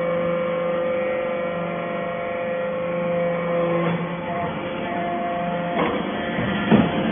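Vertical hydraulic baler running with a steady hum. The tone shifts about four seconds in, and there are a couple of knocks near the end.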